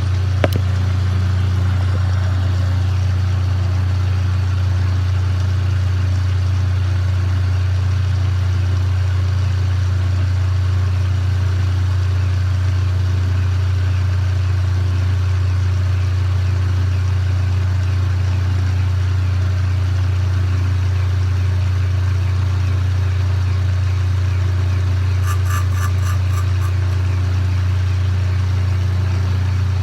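A 1920s Kwik Way valve grinder running, its old electric motor giving a loud, steady low hum while a valve is ground smooth to take the pitting out of it.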